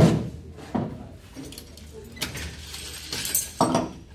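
Metal hand tool knocking and clinking against the steel edge of a Toyota Camry door: a sharp knock at the start, another under a second later, a stretch of scraping and clinking, then another knock near the end.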